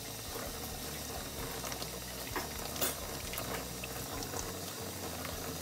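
Cold water running steadily from a kitchen tap and splashing over hands and tomatillos into a sink, with a few faint ticks from handling.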